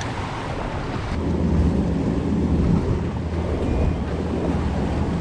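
Wind buffeting the microphone over sea water washing against jetty rocks, joined about a second in by a steady low hum of a boat engine.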